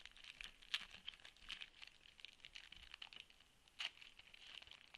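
Foil trading-card pack crinkling and tearing as it is opened by hand: faint, irregular crackles, with a sharper snap under a second in and another about four seconds in.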